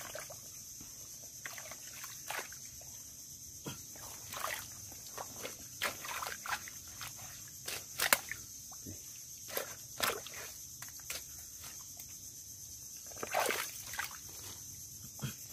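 A hand digging and groping in wet mud and water inside a mangrove mud crab burrow: irregular squelches, slaps and sloshes. A steady high-pitched hum runs underneath.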